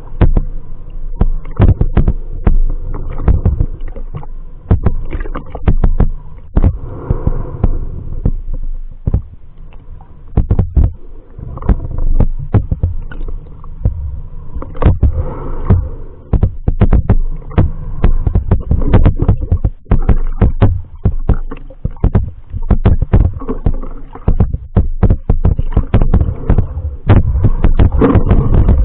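Muffled underwater sound from a camera held just below the sea surface: water moving in a low rumble, with many irregular sharp clicks and knocks.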